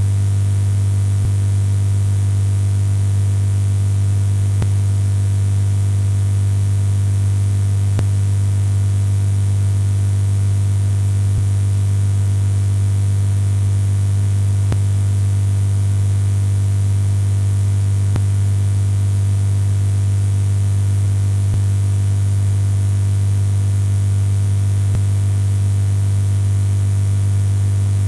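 Steady low hum with a hiss of static, unchanging throughout, and a faint click about every three and a half seconds.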